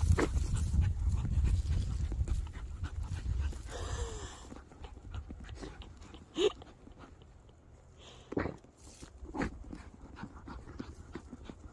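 A Jack Russell terrier and a Chihuahua/Beagle mix digging frantically in dry dirt: paws scraping and flinging soil in quick strokes, with the dogs panting into the hole. The digging is loudest in the first few seconds, and a few short sharp breath or whine sounds come later.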